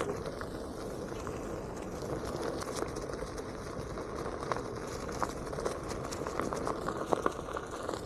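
Onewheel rolling along a forest trail: a steady rolling rumble with scattered sharp crackles of twigs and leaf litter under the tyre.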